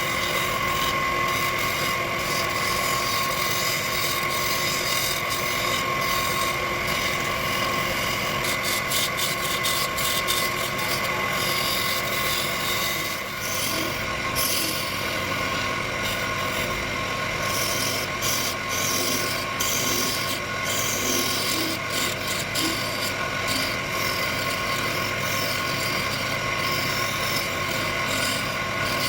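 Wood lathe running with a steady whine while the spinning wood is worked, giving a rubbing, scraping sound.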